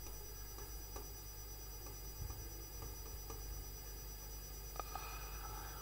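Quiet room tone with a steady faint electrical hum and a few soft ticks of a stylus tapping and writing on a touchscreen board.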